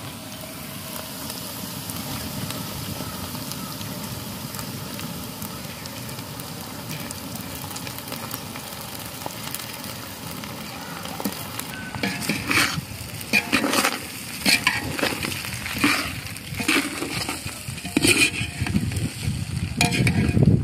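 Soaked flattened rice (poha) tipped into a pot of frying potato masala, with a steady sizzling hiss. From about twelve seconds in, a metal ladle scrapes and clanks against the metal pot in irregular strokes as the poha is stirred in, louder toward the end.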